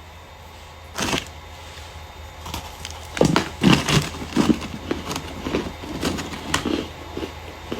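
Starch being crushed, crunching and crackling: a single crunch about a second in, then a run of irregular crunches from about three seconds in.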